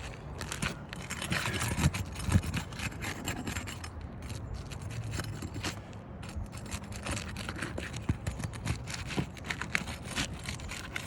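Flat metal shingle tool scraping and prying under asphalt roof shingles to break their seal, in a run of irregular scrapes and crackles.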